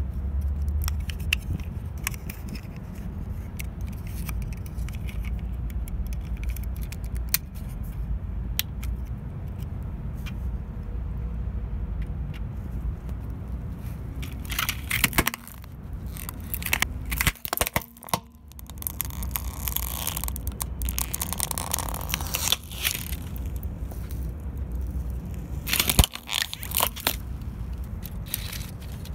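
Plastic triceratops toy clicking as it is handled, over a low steady rumble. Partway through, a car tyre rolls over the toy and crushes it with a burst of cracking and crackling, and there is a sharp crack near the end.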